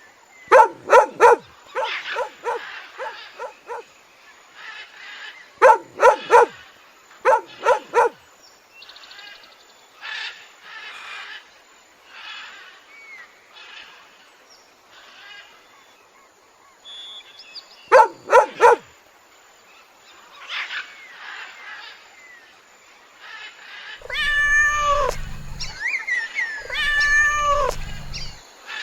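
A series of different animal calls, one kind after another. Groups of short, sharp calls come near the start, about six seconds in and about eighteen seconds in, softer chirping falls between them, and two longer, louder calls come near the end.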